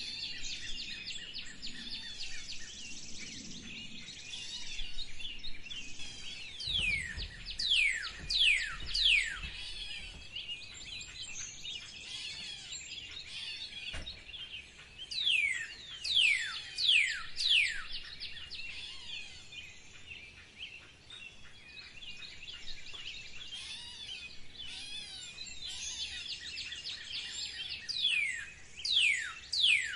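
A chorus of songbirds chirping, with one bird repeatedly giving loud, sharply downward-sliding whistles in quick runs of three or four; the runs come three times.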